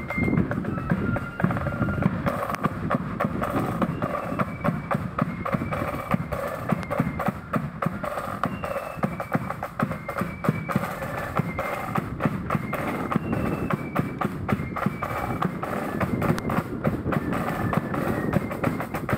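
Marching flute band playing a march: a stepping flute melody over a steady beat of snare drums and bass drum.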